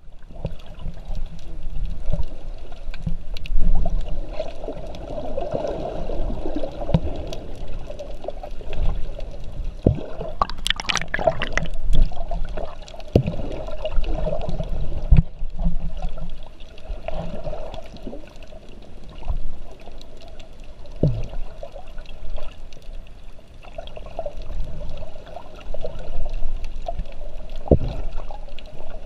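Muffled underwater water movement picked up by a submerged camera: an uneven low sloshing rumble with scattered knocks, and a brief sharper burst about ten seconds in.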